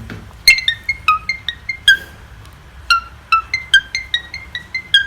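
Ringtone-style melody of short, bright, marimba-like struck notes in two quick runs, about five notes a second, with a pause of about a second between them.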